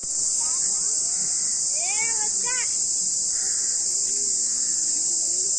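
Steady, high-pitched drone of an insect chorus from the surrounding forest, with a child's voice calling out briefly about two seconds in.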